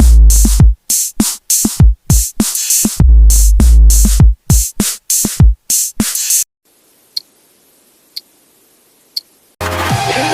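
Electronic intro music built on loud drum-machine hits with pitch-dropping bass. It breaks off about two-thirds of the way through for a few seconds of quiet with three faint ticks about a second apart, then the music comes back in near the end.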